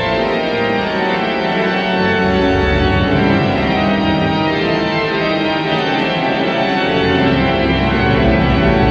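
Church pipe organ playing sustained full chords, with deep pedal bass notes coming in about two and a half seconds in and again near the end.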